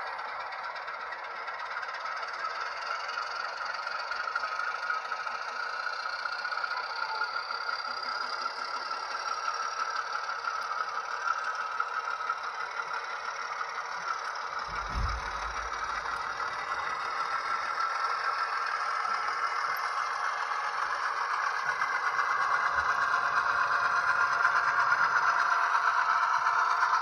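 Model diesel locomotive's sound decoder playing a six-cylinder Alco diesel engine sound through the model's small speaker, mixed with the rattle of model wagons on the track. There is a low thump about halfway through, and the sound grows louder near the end.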